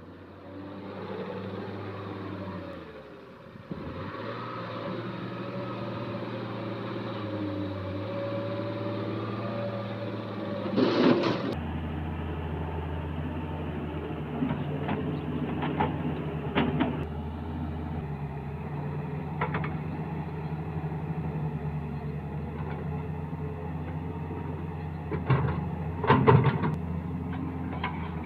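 Doosan 140 wheeled excavator's diesel engine running under hydraulic load while it digs and loads soil, its note stepping up about eleven seconds in. Loud knocks and clatters of the steel bucket and soil come about eleven seconds in, a few more follow, and there is a cluster near the end.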